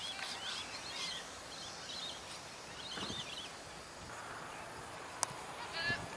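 Small birds chirping over a steady outdoor hiss, with one sharp click a little past five seconds in.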